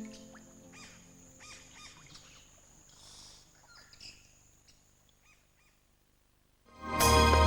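Rainforest ambience of scattered bird chirps and calls over a faint steady high hiss, fading down to near silence. Near the end, loud orchestral-style music starts abruptly.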